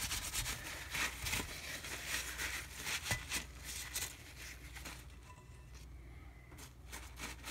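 Wadded paper towel crumpling and rubbing as oil is wiped into the grids of a cast iron waffle iron plate for seasoning, in irregular rustling strokes that thin out after about four and a half seconds.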